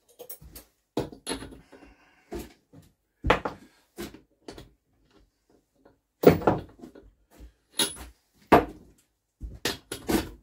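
Irregular metallic knocks and clunks of a hand tool working on the spark plug of an old BSA stationary engine, the tool knocking against the engine's sheet-metal cylinder cowling. About ten separate knocks, the loudest about six seconds in.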